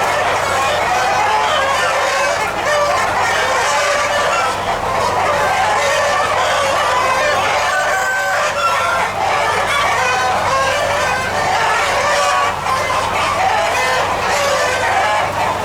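A large flock of chickens clucking continuously, many calls overlapping, with roosters crowing among them.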